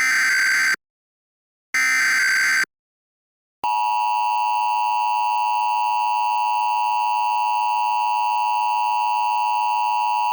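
Emergency Alert System tones: two one-second bursts of screechy SAME header data, then, about three and a half seconds in, the steady two-tone EAS attention signal (853 and 960 Hz) begins and holds.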